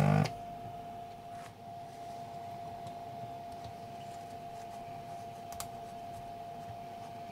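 A handheld desoldering gun's vacuum pump runs in a short burst at the very start, then a steady faint high hum remains, with a few light clicks and rustles as the circuit board is wiped with a tissue.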